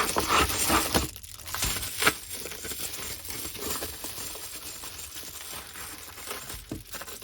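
Packaging being opened and handled: crinkling and rustling with small clicks, busiest over the first two seconds with a sharp click about two seconds in, then quieter rustling.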